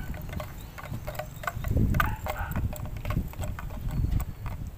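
Handling noise from a handheld camera outdoors: an uneven low rumble with scattered clicks and knocks as it is moved about.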